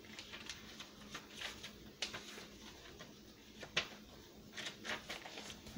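Paper and cardstock pages of a handmade junk journal being turned and handled: soft paper rustles and light taps, with one sharper click a little under four seconds in.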